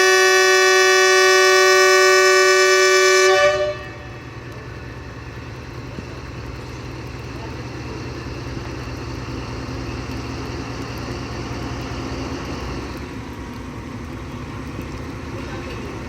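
ZCU-20 diesel-electric locomotive's horn blowing one long steady blast that cuts off sharply about three and a half seconds in, followed by the locomotive's engine running with a low steady rumble as the train pulls out.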